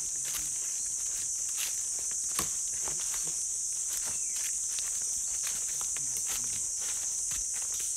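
Footsteps of people walking over the forest floor, with irregular crunches and twig snaps, against a steady high-pitched insect drone.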